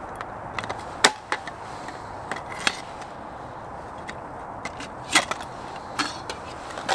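Scattered clicks, clinks and knocks of small camp cooking gear being handled and set out: pieces of a nesting cook set, a small canister stove and its fuel.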